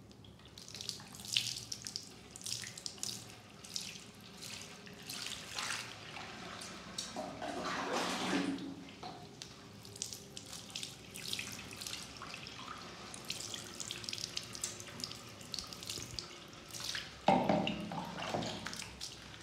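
Water poured from a plastic jug splashing and dripping over a wet, shampooed kitten in a washbasin, in uneven splashes and trickles, with louder splashes about eight seconds in and again near the end.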